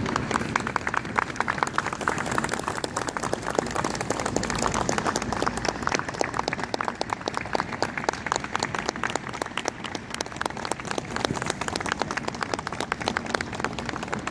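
Crowd applauding: a dense, uneven patter of many hands clapping, a little heavier in the first few seconds.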